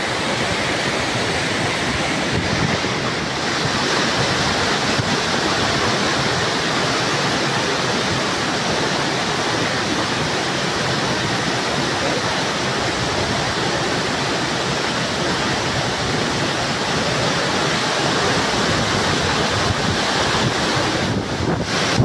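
A powerful, hard-flowing waterfall heard close up: a steady, loud rush of falling water.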